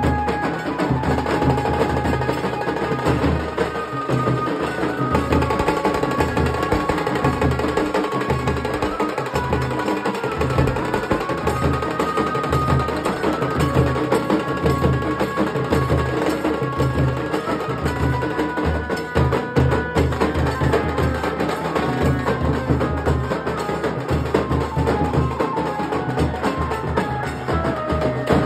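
Nashik dhol-tasha troupe playing: big barrel dhols struck with sticks give deep, evenly repeating beats under the fast, dense strokes of tasha drums, in one continuous rhythm.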